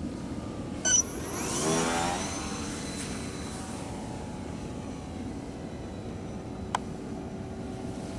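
Motor and propeller of a foam RC model airplane passing close by, its pitch falling steeply as it goes past, then a steady fainter drone as it flies off. A brief loud burst comes about a second in, and a single sharp click near the end.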